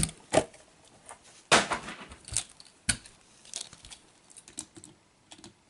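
Clicks, knocks and light rattles of 1:64 Hot Wheels diecast monster truck toys being handled and set down on a mat, with a louder knock about one and a half seconds in and a sharp click about three seconds in.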